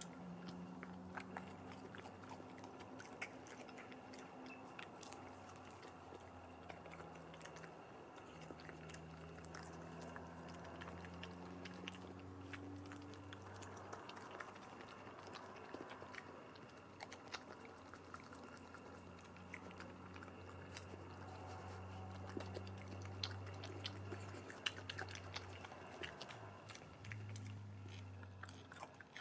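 European badger chewing and crunching chips: a steady run of small, sharp crunching clicks from its mouth, over a faint low hum.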